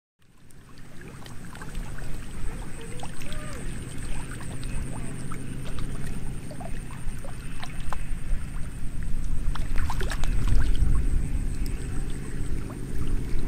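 Outdoor noise over a shallow muddy pool: a dense low rumble that fades in at the start and grows a little louder near the end, with scattered small ticks and a steady thin high-pitched whine.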